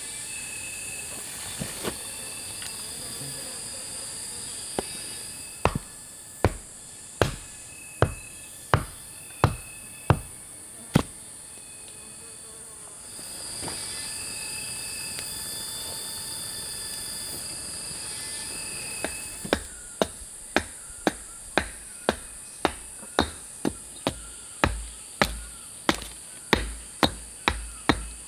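Repeated chopping strikes. A run of about eight blows, evenly spaced under a second apart, comes first; after a pause, a faster run of about fifteen follows at roughly two a second. A steady buzz of insects runs underneath.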